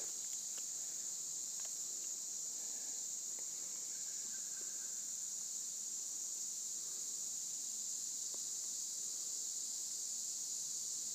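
Steady, high-pitched chorus of insects, unchanging throughout, with a few faint ticks.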